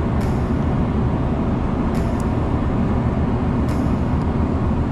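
Steady low rumbling noise on a ship's deck, with a few faint clicks.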